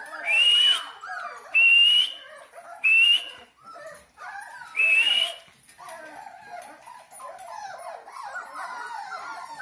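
Puppies whining: four loud, high cries that rise slightly in pitch, each under a second long, in roughly the first five seconds, with softer whimpering between and after them.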